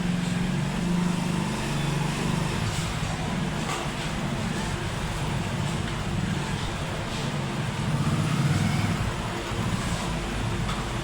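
An engine running steadily with an even low hum, and a few light clicks over it.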